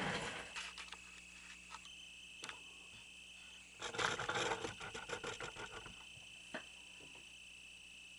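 Faint rustling and light clicks of handling, in two bursts near the start and from about four to six seconds in, over a steady high-pitched whine.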